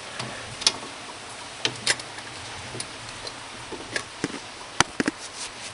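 Irregular light clicks and knocks, about a dozen spread over several seconds, of hands handling an old brake hose and carburettor parts while rigging the hose to hold the choke closed.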